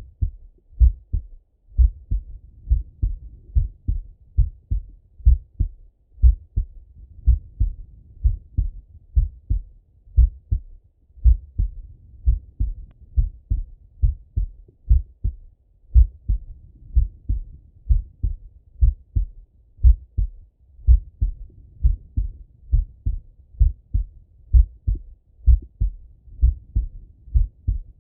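Adult man's heartbeat heard through a stethoscope chest piece: a steady, even rhythm of low paired thumps, the lub-dub of the heart valves closing.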